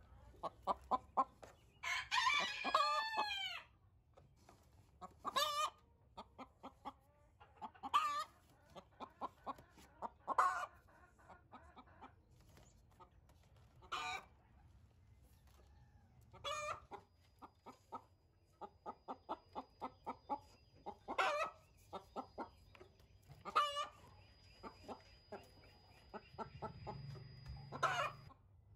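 Backyard chickens clucking in short, quick runs, with a rooster crowing once about two seconds in.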